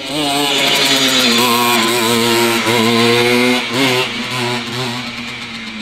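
Simson moped's two-stroke engine revving high and held on the throttle, its pitch wavering, with a short dip a little before four seconds in and the revs falling away near the end.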